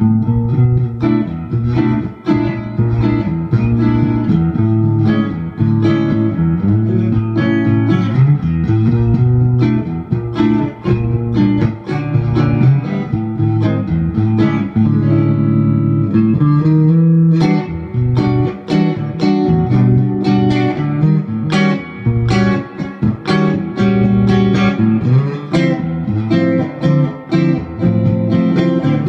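Electric guitar played through a Fender Vibroverb clone tube amplifier: a continuous blues-rock passage of picked single notes and chords, getting busier and brighter about halfway through.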